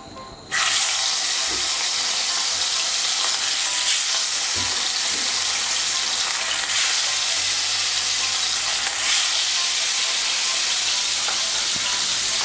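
Rohu fish steaks frying in hot mustard oil in a kadai. A loud sizzle starts suddenly about half a second in as the first piece goes into the oil, then holds steady as more pieces are added.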